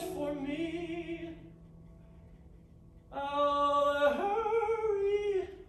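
A male singer holding long notes over grand piano accompaniment. One note fades out about a second and a half in; after a short lull another long note starts about three seconds in and rises in pitch a second later.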